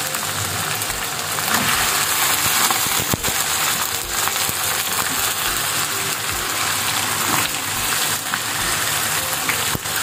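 Hot ghee sizzling steadily in a non-stick frying pan with browned onions as raw chicken pieces go in, with a couple of sharp clicks from the spatula.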